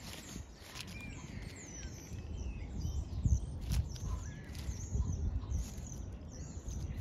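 Small songbirds chirping and calling in quick, high, scattered notes, with low rumbling bursts on the microphone, the loudest about three seconds in.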